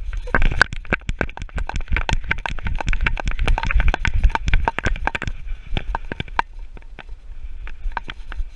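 Fast, irregular clatter of knocks and rattles from a GoPro jolting in its housing on a running dog's harness, over a low rumble of wind and handling. The knocks come thickly for about five seconds, then thin out to scattered clicks.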